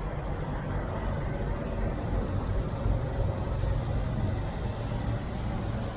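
Steady low rumble of an idling diesel truck engine.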